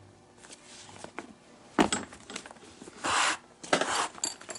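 Leather lace being pulled through the lacing holes of a Nike Diamond Pro J baseball glove during relacing: a sharp rustling snap about two seconds in, then two short rasps as the lace is drawn through, a little after three and four seconds in.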